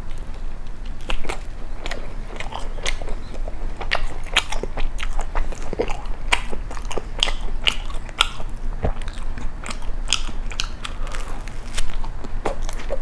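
Close-miked chewing of crisp toast: many sharp, irregular crunches and crackles.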